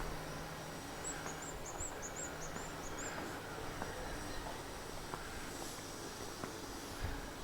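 A small bird giving a quick run of high chirps about a second in, over a faint, steady street background.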